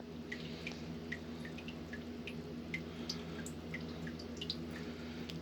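Leaky faucet dripping, small drops falling at about two a second with uneven spacing, over a low steady hum.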